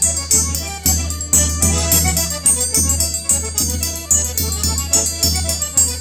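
Polish folk trio playing an oberek, a fast dance tune: violin carrying the melody over a three-row accordion, with a hand-held bęben drum striking a steady, accented beat.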